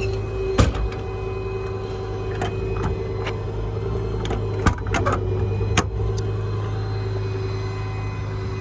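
Steady hum of the service truck's V10 gas engine left running, with several sharp clicks and knocks over it.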